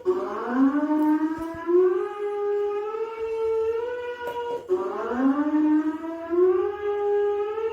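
Emergency-alert siren tone: one steady tone holds while a second tone swoops up from well below it and rises in steps to meet it. The cycle then drops back and starts again about every four and a half seconds.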